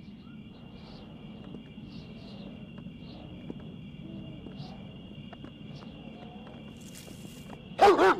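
Night-time insect chirring: crickets keep up a steady high trill. Near the end a large dog, a Great Dane, barks loudly twice in quick succession.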